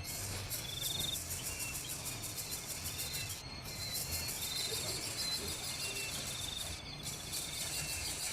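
Insects in a dense high chorus, with short high trilled chirps recurring every second or two over a low hum.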